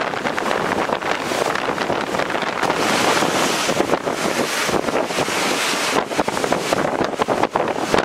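Strong wind buffeting the microphone over storm waves of Lake Superior breaking on shoreline rocks, the noise swelling for a stretch around three seconds in.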